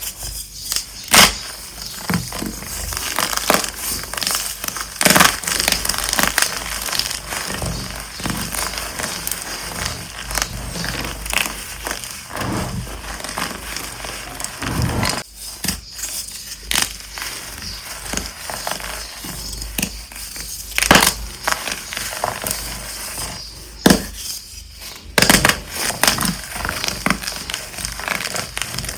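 Dyed gym chalk blocks being crushed: a continuous crunching crackle with many sharp snaps as the blocks break and crumble. The crunching pauses briefly about fifteen seconds in and again around twenty-four seconds.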